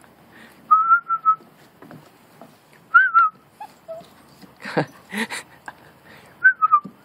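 Husky puppy whining in three short, high, wavering whines, a sign of its fear of going down the steps. A couple of sharp knocks come between the second and third whines.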